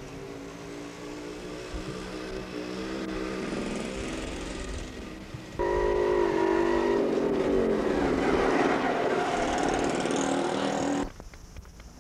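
Motor vehicle engine running, its pitch rising slowly for about five seconds. About halfway through it jumps abruptly to a louder engine whose pitch falls steadily for about five seconds, then cuts off suddenly near the end.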